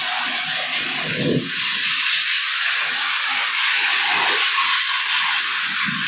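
A steady rushing hiss, with a faint uneven rumble underneath.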